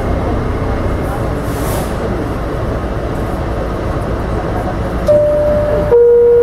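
R68A subway car running with a steady rumble. Near the end a two-note descending chime sounds: one held high note, then a lower one.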